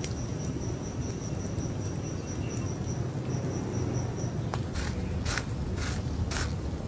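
An insect chirping, a high note pulsing about five times a second, stops about four seconds in. After it come several short rustles and scrapes of hands working food in a pile of flour.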